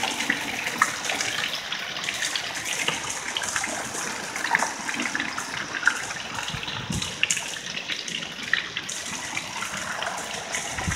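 Heavy rain mixed with hail pouring down on grass and bare ground: a steady rushing hiss, dotted with many sharp ticks of hailstones striking.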